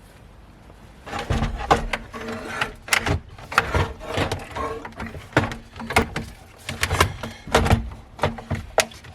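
Irregular sharp clicks and knocks of hand work on the plastic steering column cover and dash trim as they are worked loose. They begin about a second in and come roughly once or twice a second.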